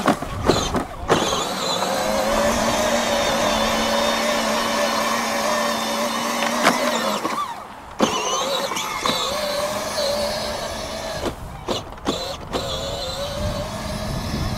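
12-volt Power Wheels Jeep Wrangler ride-on toy driving over grass, its electric drive motors and plastic gearboxes running with a steady whine. The sound stops for a moment about halfway through, then starts again, with a few short cut-outs near the end as the pedal is let off and pressed again.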